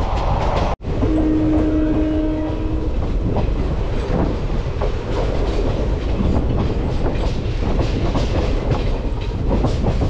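Express passenger train running on the rails, heard from aboard, its wheels clacking over the rail joints under a steady rumble. A steady tone sounds for about two seconds near the start, just after the sound cuts out for an instant.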